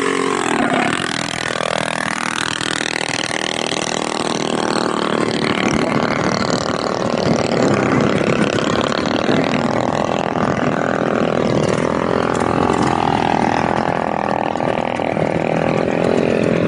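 Mini bike engines revving hard at a drag race. Their pitch drops and then climbs in the first few seconds, and later slowly falls.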